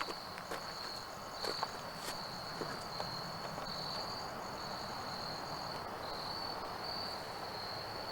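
Insects trilling steadily at a high pitch in a continuous chorus that swells and fades in a slow pulse. A few faint clicks sound in the first two seconds.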